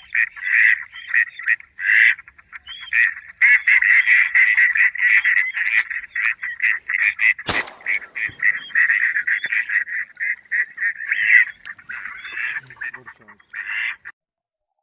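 Duck quacking: rapid, nasal runs of calls, repeated almost without pause, with a single sharp crack about seven and a half seconds in.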